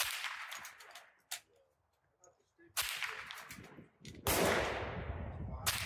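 Gunshots with a decaying echo: four in a few seconds. Between them come light metallic clicks of a bolt-action rifle's bolt being worked.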